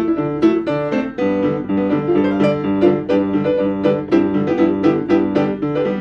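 Piano tune played on a keyboard: chords and a melody over a steady repeating bass, with the harmony changing about a second in.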